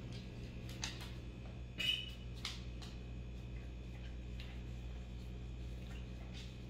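Husky licking food off lick mats: a run of irregular small tongue clicks and laps, with one louder click about two seconds in.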